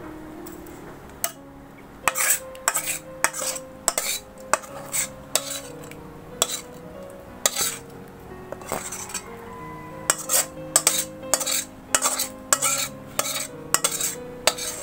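A metal spatula and spoon scraping and knocking against a metal cooking pan and a steel plate, in repeated quick strokes from about two seconds in with a short lull in the middle, as thick cooked mango pulp is scraped out. Soft piano music plays underneath.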